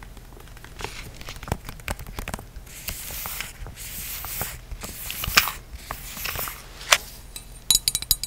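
Long fingernails tapping, scratching and crinkling a plastic spouted pouch close to the microphone, with irregular sharp taps and short crinkly rustles. Near the end, light high clinks as a glass flower ornament is handled.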